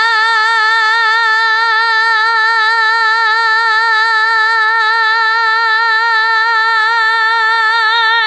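A woman's singing voice holding one long high note with a steady vibrato, unaccompanied.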